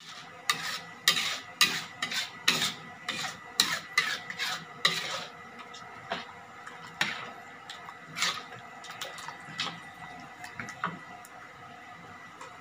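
Metal ladle scraping and clinking against a metal wok while stirring spice paste: quick strokes about twice a second for the first five seconds, then slower and sparser.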